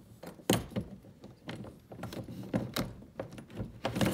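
Irregular knocks and clicks of a kayak seat's frame and cam lock being worked down into the seat rail, the sharpest knock about half a second in.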